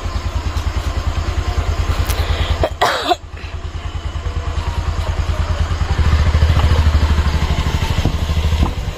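Motorcycle engine idling with an even, low pulsing beat, growing louder about six seconds in.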